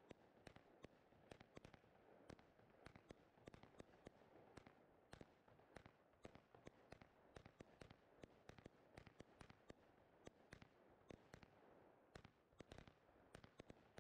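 Faint, rapid, irregular pops and bangs of a WECO 100-shot consumer fireworks compound battery firing 20 mm shots, bursting one after another in quick succession.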